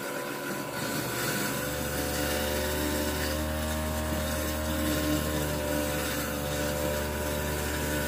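Kitchen garbage disposal motor running steadily, a low hum with a grinding rattle, while boiling water from a kettle pours into the drain. The low hum grows stronger about a second and a half in.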